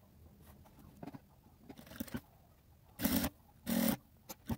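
Bag fabric and materials being handled: a few faint clicks, then two short crinkly rustles about three and four seconds in.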